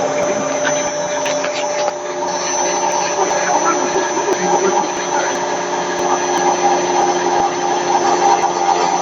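Screw rotor milling machine running, a steady machine sound with several held tones over a rough grinding noise.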